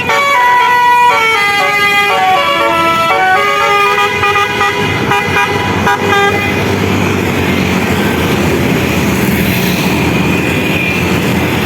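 A bus's telolet basuri musical air horn plays a quick tune of stepped notes for about six seconds. It then stops and leaves the steady noise of the bus's engine and tyres.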